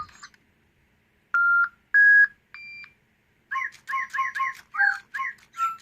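DigiBird electronic toy birds singing in choir mode: three clear, separate notes rising in pitch, then a quick run of short electronic chirps several a second from about three and a half seconds in.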